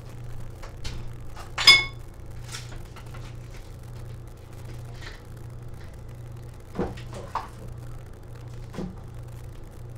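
Kitchen handling noises: a sharp metallic clink that rings briefly, about two seconds in, then a few softer knocks later on, over a steady low hum.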